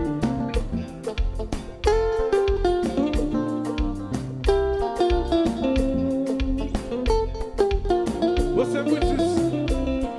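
Live konpa band playing: a lead electric guitar from a Fender Stratocaster plays held, bending melody notes over a steady bass and drum groove.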